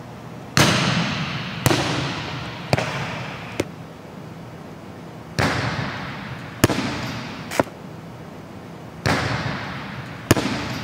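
Volleyball serves struck by hand in a large echoing gym, three in all: a topspin serve, then two float serves. Each is a sharp hit with a long echo, followed by a few shorter knocks about a second apart as the ball bounces on the court. The sound of the hand on the ball is how a clean, centred float-serve contact is told apart.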